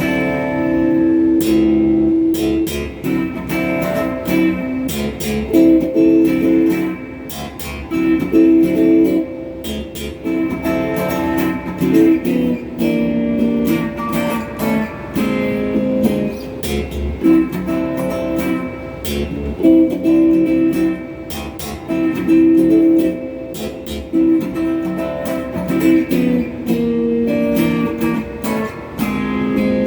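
Donner strat-style electric guitar played through a phaser pedal and a Klon-clone overdrive into a Crate GX30M amplifier, a mix of strummed chords and picked single notes.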